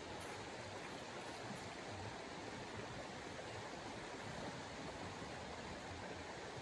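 Steady, even rushing outdoor noise with no distinct events.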